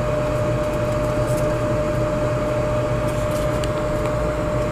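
GoWise USA turbo air fryer's convection fan running steadily, with a low hum and a steady whine. Faint scattered crackles come from bacon cooking in the hot moving air.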